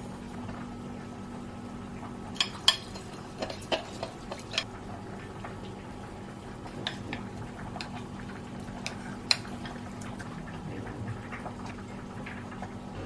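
Wooden spoon clicking and scraping against a glass mixing bowl as soy sauce, sesame seeds and tuna cubes are stirred together. The sharp light clicks come in two clusters, a few seconds in and again past the middle, over a steady low room hum.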